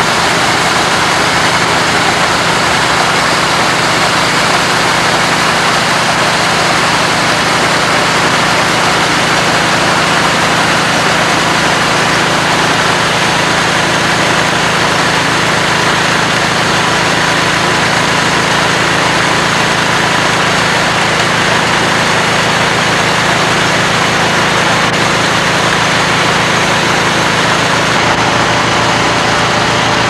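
Grain augers running while loading a grain trailer: a steady machine hum with a regular low throb, under a constant rushing hiss of grain pouring from the auger spouts into the trailer.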